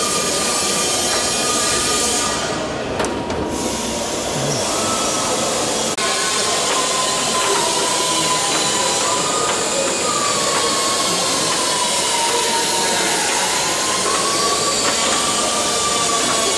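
A steady, loud, machine-like hiss with a faint whine that slowly wavers in pitch, and a single click about six seconds in.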